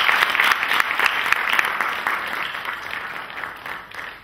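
Audience applauding, many hands clapping, the applause fading away toward the end.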